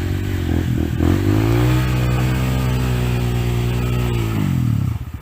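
A trail motorcycle's engine is revved up about a second in and held at high revs for a couple of seconds, then drops back down near the end.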